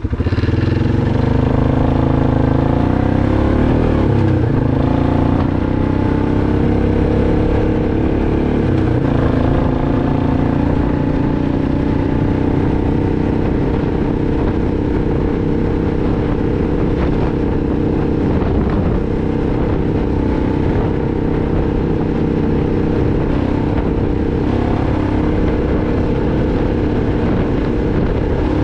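2006 Arctic Cat 500 ATV's single-cylinder four-stroke engine running while riding. The throttle opens right at the start, the pitch shifts up and down over the next few seconds, then the engine runs on steadily with small changes in speed.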